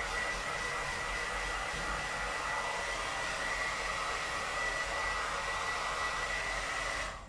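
Handheld hair dryer running steadily: a rushing blow with a steady high whine, cutting off suddenly near the end.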